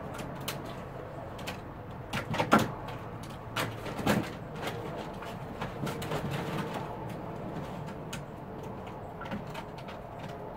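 A dog stepping about in and tugging at a plastic kiddie pool: thumps, knocks and scrapes of the plastic, with a cluster of louder knocks a couple of seconds in and again around four seconds.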